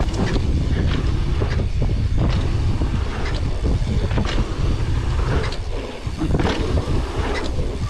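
Mountain bike riding fast down a dirt trail, heard from a handlebar-mounted camera: a steady low rumble of wind and tyres, with irregular knocks and rattles as the bike goes over bumps.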